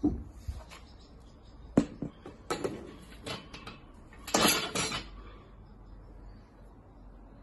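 Weight plates being handled and loaded onto a barbell: a string of metallic clinks and knocks, with the loudest clatter about four and a half seconds in as a plate slides onto the bar's sleeve.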